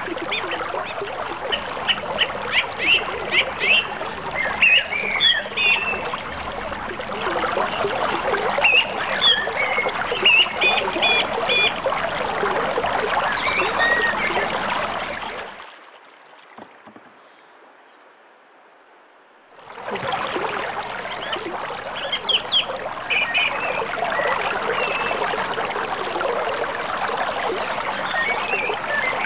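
Creek water running steadily, with birds chirping over it. About halfway through the water sound drops away for around four seconds, then returns.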